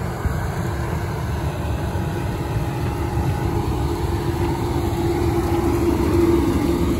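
Machinery of a rice grain dryer running steadily: a low rumble with a steady hum that grows a little louder in the second half.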